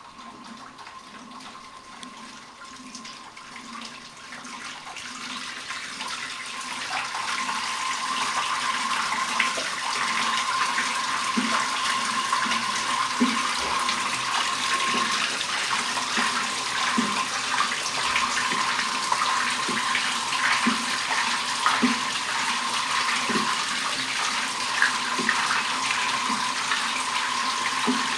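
Electrolux LTA15 top-load washing machine on its Acquajet function: the basket spins full of water, churning and splashing, with a steady whine over it. The sound grows louder over the first several seconds, then holds. The owner blames this function for making water overflow onto the floor.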